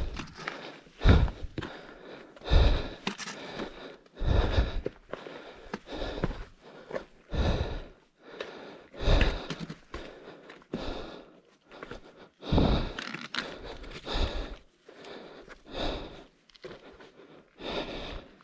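A hiker's slow steps on bare rock mixed with hard breathing, one burst about every one and a half to two seconds.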